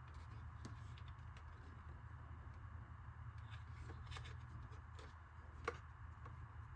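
Faint clicks and taps of hard plastic parts being handled as clear plastic window glass is fitted onto the locators of an RC crawler's hard plastic body, with one sharper click near the end, over a steady low hum.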